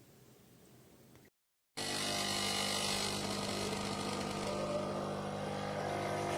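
Electric blade coffee grinder's 300 W motor running steadily at full speed, starting abruptly about two seconds in.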